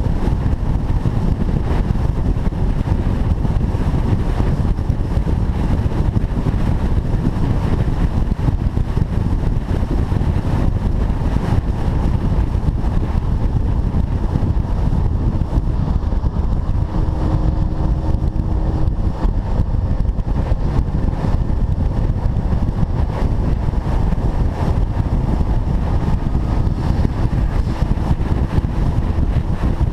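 A car driving at a steady pace: a loud, constant rumble of engine and road noise with wind buffeting the microphone, with no revving up or down.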